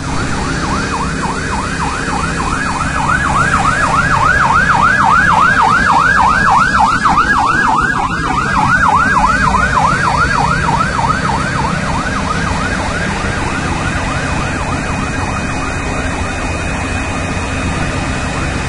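Emergency vehicle siren in a fast yelp, about four rising-and-falling sweeps a second, growing louder toward the middle and then fading, over a steady low rumble.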